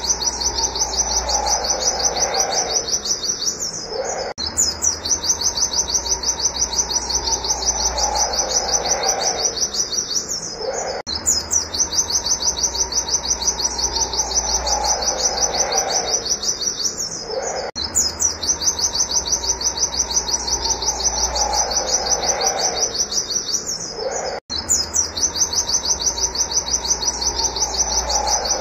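White-eye (pleci) calling in a fast, steady run of sharp, high 'wit wit' notes, several per second, with a short break about every seven seconds. A lower falling note sounds once in each of those stretches.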